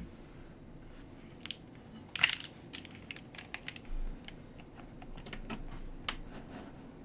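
Mechanical keyboard with Geon Raptor MX Extreme switches on an aluminium plate, keys struck one at a time in an irregular scatter of sharp clacks. The loudest is a quick cluster about two seconds in, and there is a short low thump about four seconds in.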